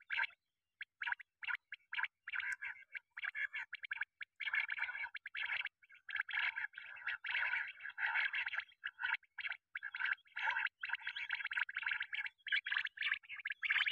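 Quail calling: rapid, buzzy rattling calls repeated in bursts with short gaps between them.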